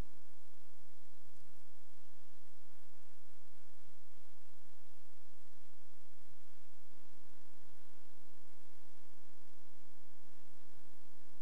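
Steady electrical mains hum: a buzz of several fixed tones that does not change.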